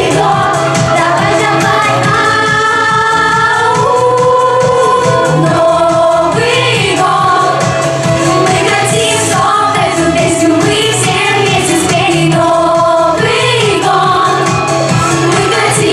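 A vocal pop ensemble singing a New Year song together over a backing track with a steady beat.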